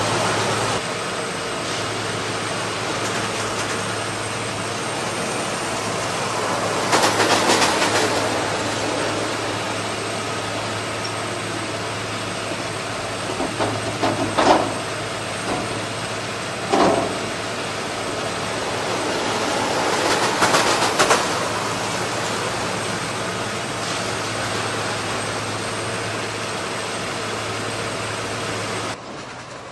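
Plasser & Theurer rail track machine running on the line: a steady engine hum and rolling rail noise, swelling louder twice, with a few short knocks in between.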